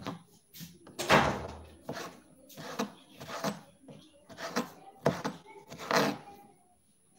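Kitchen knife chopping tomatoes on a cutting board: a string of knocks, roughly two a second, the loudest about a second in.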